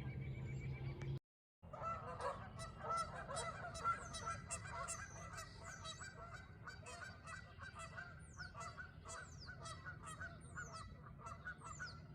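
A steady humming tone that cuts off about a second in, then a short gap and a dense chorus of many birds calling at once: overlapping honking calls with quick high chirps above them.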